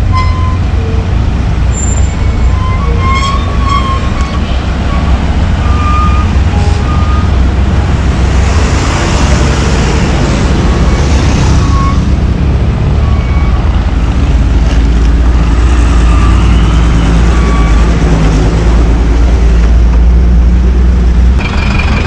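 Buses and trucks stopped in a traffic jam, their engines running with a loud, steady low rumble. A hiss rises for a few seconds in the middle.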